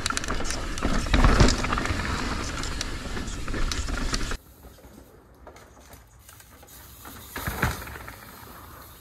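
Mountain bike riding down a steep rock roll, heard from the rider's GoPro: wind rush on the microphone with tyres on rock and the bike's rattles and clatter, cutting off suddenly about halfway. After that it is much quieter, with one brief louder swell of noise near the end.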